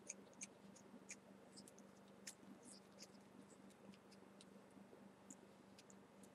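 Near silence with scattered faint clicks and small scrapes as fingers handle the stainless-steel parts of a Russian 91% rebuildable vape atomizer, over a low steady hum.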